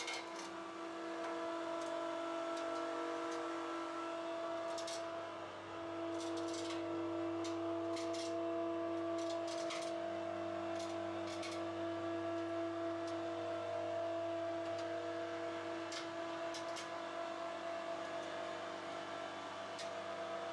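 Electric 220 V cable winch motor running steadily with an even hum, hauling a freight elevator platform up on its rope and pulley. A few faint ticks sound now and then.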